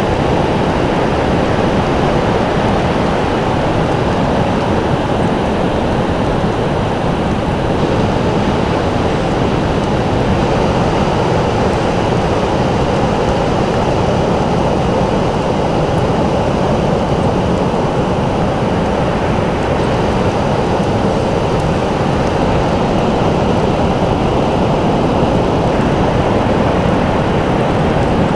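Ocean surf breaking on a sandy beach: a steady, even rushing noise, heaviest in the low and middle range, with no single wave standing out.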